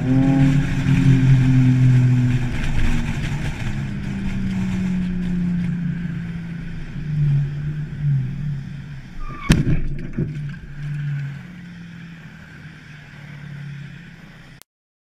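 A car engine hums, its pitch slowly falling as the car slows. About nine and a half seconds in comes a sharp crash, the impact of a rear-end collision with the car ahead, followed by a few smaller knocks. The sound cuts off suddenly near the end.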